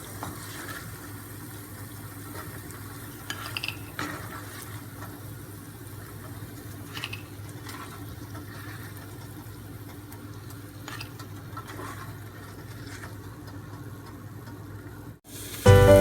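Murukku deep-frying in hot oil, a steady sizzle, with a few light clinks of a utensil against the pan. Music starts near the end.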